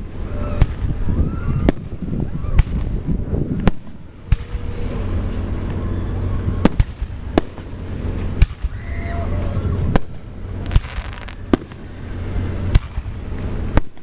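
Fireworks display: a run of sharp bangs, about a dozen, roughly one every second, over a continuous low rumble.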